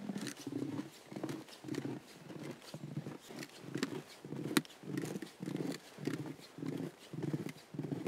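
Footsteps crunching through snow at a steady walking pace, about two steps a second.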